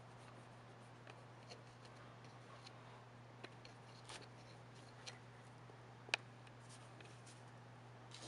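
Near silence over a steady low hum, with scattered faint clicks and taps of small parts being handled; the sharpest click comes about six seconds in.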